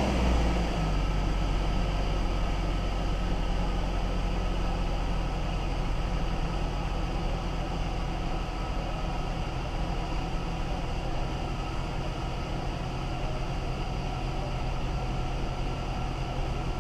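A 1999 Jeep Cherokee's engine idling steadily just after being started, its level easing slightly as the idle settles.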